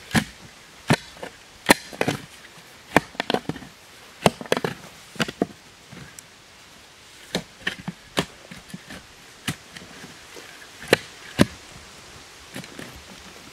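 Spade blade driven into root-filled forest soil, a series of sharp, irregular strikes with short scrapes between them and a pause around the middle.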